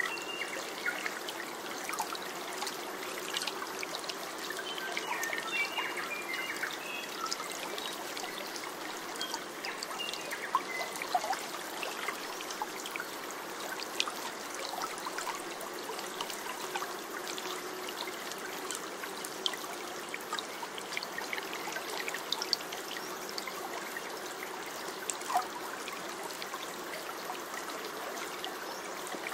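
Water trickling in a small stream: a steady babble with many small splashes and drips.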